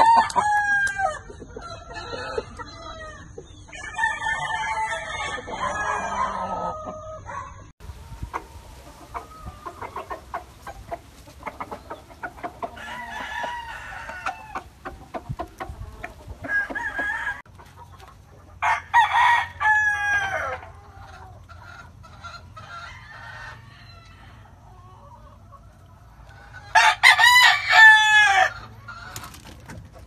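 Roosters crowing again and again, a crow every few seconds, with the loudest crow near the end and clucking between the crows.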